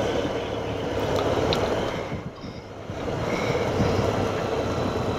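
Motorcycle on the move: steady engine note under a wash of wind noise, easing off briefly for about a second a couple of seconds in.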